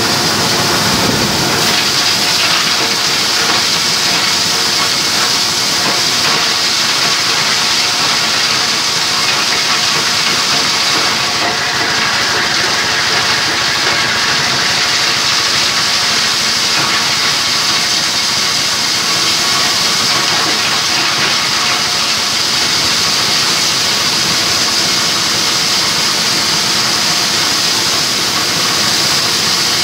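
Multipurpose hammer-mill crusher, driven by an 8 hp diesel engine, running under load as dry crop waste fed into its hopper is ground to powder: a loud, steady mechanical whir with a strong hiss of air and powder blowing from the outlet.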